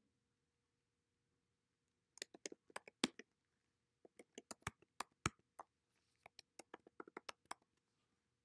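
Typing on a computer keyboard: three quick runs of key clicks with short pauses between them.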